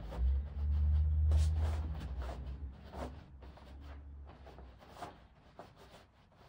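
Gi jacket fabric rustling and scraping in short bursts as a sleeve is worked over a grappling dummy's arm, with a low rumble of handling noise in the first couple of seconds that fades away.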